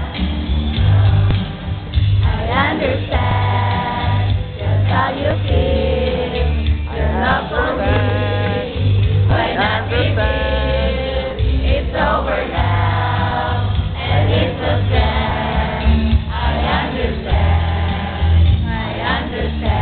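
Music: a song with sung vocals over a loud, pulsing bass line.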